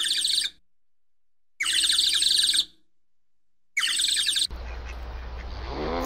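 Woodpecker calling in three short bursts of rapid, high-pitched chattering notes, each under a second and separated by silences. About four and a half seconds in, the bird calls stop and a steady rushing background takes over, with the start of a low, rising animal call near the end.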